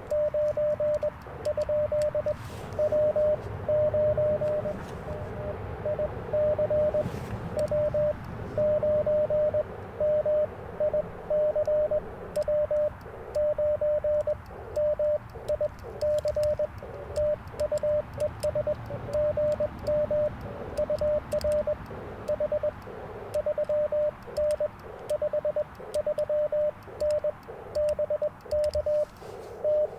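Morse code (CW) from an Icom IC-705 transceiver on the 40 m band: a single steady mid-pitched tone keyed on and off in dots and dashes throughout, with band hiss between the characters.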